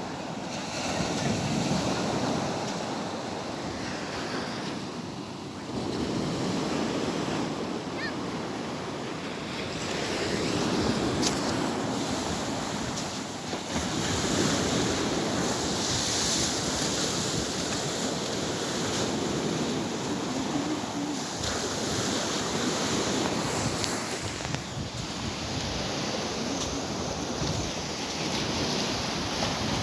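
Sea water rushing and splashing, with wind buffeting the microphone; the noise swells and eases every few seconds.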